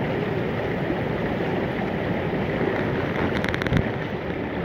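Creek water rushing steadily, with a brief run of rapid clicks about three and a half seconds in.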